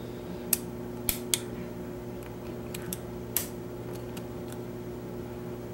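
Small sharp clicks and ticks of a Lishi HU100 pick working inside a Chevrolet car door lock, its lifter probing the wafers one position at a time, a few scattered clicks over a steady low hum.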